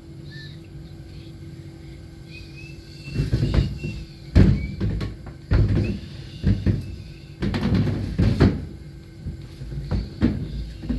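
A steady low hum, then from about three seconds in a run of irregular loud knocks and thuds, like things being handled and banged about.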